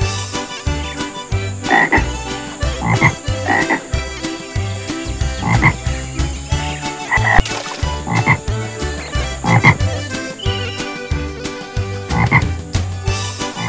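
Cartoon frog croaks, about eight of them at irregular intervals, over a backing track with a steady low beat and regular ticking percussion.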